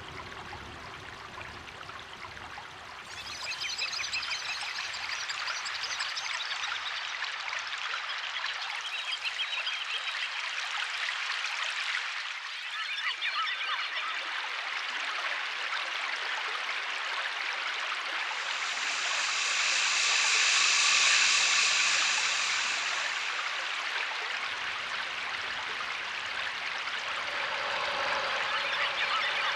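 Running water, like a stream, whose character changes abruptly several times, with a louder stretch of high pitched sound about two-thirds of the way through.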